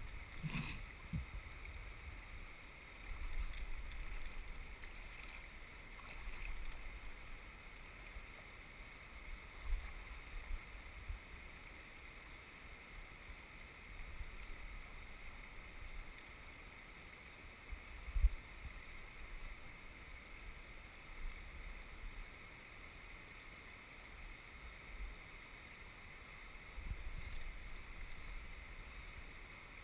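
Steady rush of a flowing river, with low buffets of wind on the microphone coming and going and a brief thump about eighteen seconds in.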